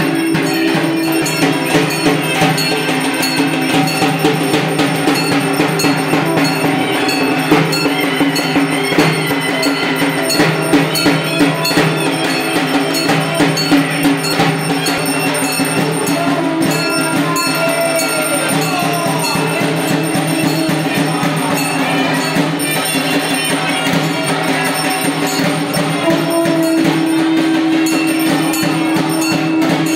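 Evening aarti accompaniment: bells ringing with rapid, steady percussion strikes over a sustained droning tone.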